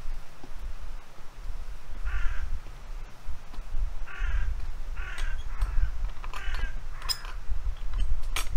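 A bird calling harshly about six times, starting a couple of seconds in, over a low wind rumble on the microphone. A sharp click comes near the end.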